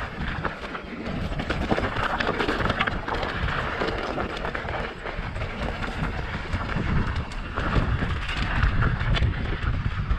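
Mountain bike riding over rocky dirt singletrack: tyres crunching on loose gravel and stones, with frequent knocks and rattles from the bike, over a steady low rumble of wind on the microphone.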